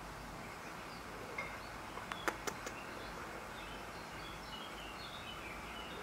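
Small birds chirping faintly in short, high calls over a steady outdoor hiss, with a quick run of three or four sharp clicks about two seconds in.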